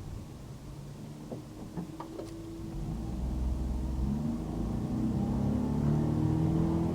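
Car driving on a city road: engine and tyre noise, growing louder about three seconds in as the engine works harder.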